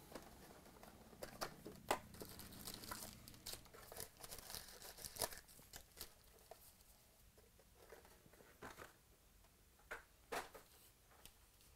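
Foil-wrapped trading card packs crinkling and clicking as they are pulled from a cardboard hobby box and stacked. Quick light rustles come thick for about six seconds, then thin out, with a couple more near the end.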